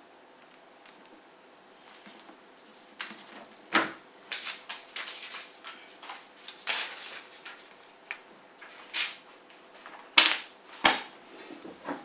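A book and its packaging being handled, with scattered rustling swishes and a few sharp knocks. The loudest knocks come about ten and eleven seconds in.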